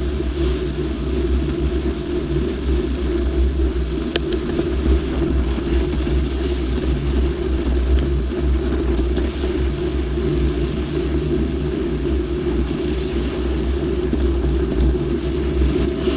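Wind buffeting the microphone of a camera on a moving mountain bike, a steady loud rumble, with one sharp click about four seconds in.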